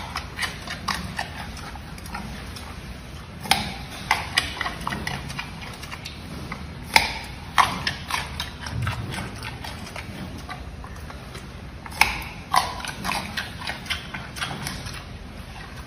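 Giant panda biting and chewing a raw carrot: irregular crunches, with a few sharp loud bites among the smaller chewing sounds.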